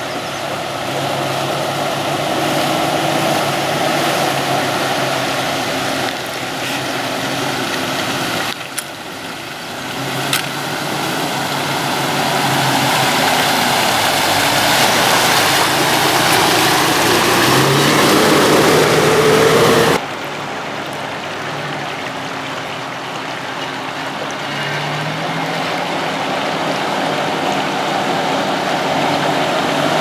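Jeep Wrangler TJ's engine running as it wades through a river, with water splashing around the wheels. The engine note rises a couple of times, and the whole sound changes abruptly twice.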